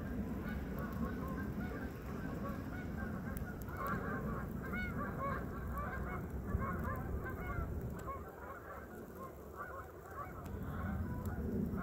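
A flock of birds calling, many short overlapping calls that are thickest around the middle and thin out near the end, over a steady low rumble.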